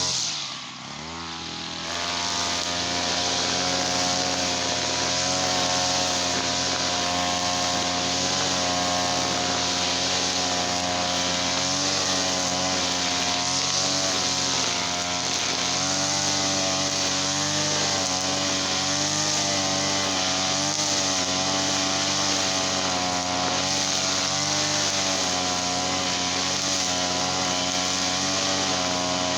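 Small petrol engine running. About a second in, its speed drops briefly and climbs back. It then runs steadily, its pitch wavering slightly up and down.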